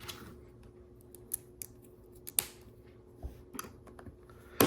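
Plastic LEGO bricks being handled and pressed together: a scatter of short, sharp clicks, the loudest near the end, over a faint steady hum.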